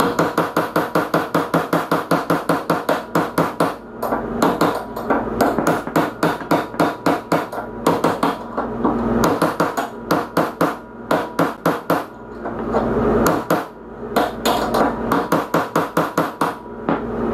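Hammer repeatedly striking a steel impact extension to drive a stuck upper caster spindle bearing out of a Gravely ZTX42 zero-turn mower's front caster. Rapid metal-on-metal blows at about three to four a second come in runs, with a few short pauses.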